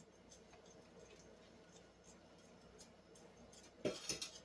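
Faint clicks and scrapes of kitchen utensils in a bowl, then a short cluster of louder sharp knocks and clatter near the end.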